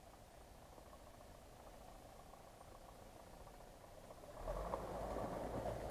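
GAZ-66 truck's engine running, faint at first and then clearly louder from about four and a half seconds in as the truck comes closer through the undergrowth.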